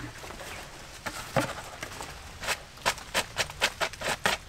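A run of sharp wooden-sounding knocks and clicks: two single knocks just after a second in, then from about two and a half seconds in a quick irregular series, two or three a second.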